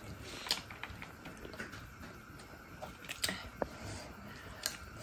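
Faint sounds of eating by hand: fingers working rice on a plate and soft chewing, with a few small sharp clicks and smacks scattered through.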